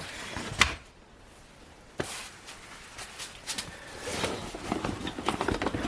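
Handling noises: a few sharp clicks and knocks, then a busier run of small clicks and rustling as tools and plastic parts are handled.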